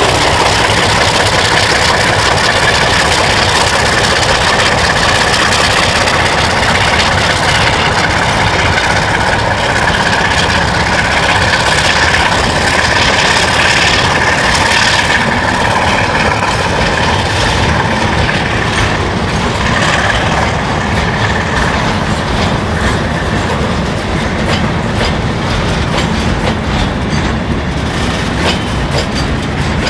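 ALCo DL500S diesel-electric locomotive pulling away with its V12 diesel engine running under load, followed by a long string of loaded hopper wagons rolling past. The wheels click over the rail joints, more sharply and often over the last third.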